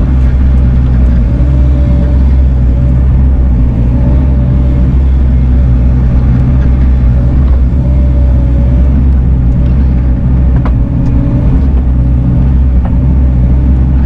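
Bobcat E42 mini excavator's diesel engine running steadily, with a wavering whine above the engine note and two light clicks in the second half.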